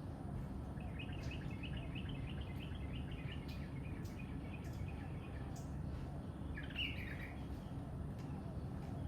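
Small birds singing: a quick run of high chirping notes for about two seconds, then a short, louder call later on, over a steady low background rumble.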